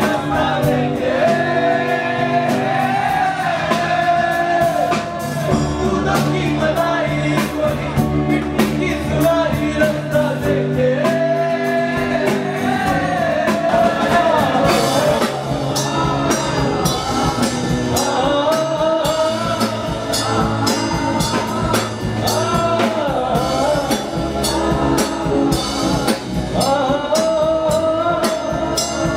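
A rock band playing a song: a male lead singer over acoustic guitar, bass and a drum kit, with the cymbals and drums growing busier about halfway through.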